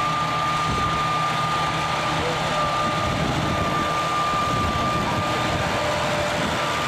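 Oliver 88 six-cylinder diesel tractor engine running steadily, with a thin, steady high whine over it. The whine is the noise the tractor makes while the clutch pedal is held down, which these tractors are said to make.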